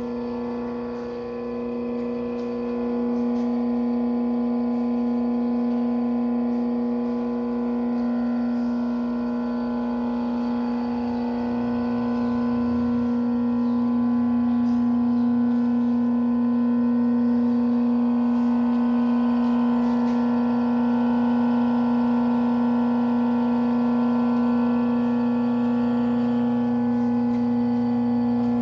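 Washing-machine motor driving a homemade wood lathe, running with a steady hum that gets a little louder about three seconds in and again about fourteen seconds in.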